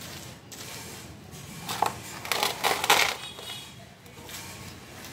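Hand spreading and pressing soil over kitchen scraps in a compost pot: crunchy rustling of soil and dry peels, loudest in a burst about two to three seconds in.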